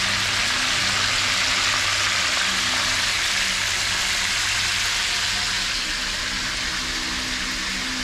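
Pieces of seasoned game bird frying in oil in a skillet, giving a steady, even sizzle, with a low hum underneath. The birds are being browned before they go into a pressure cooker for brown stew.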